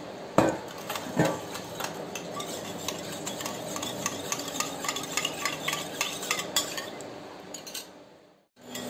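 Steel spoon stirring in a small steel bowl, dissolving citric acid crystals (tatri) in water, with two louder knocks near the start and then a run of light, quick clinks against the bowl.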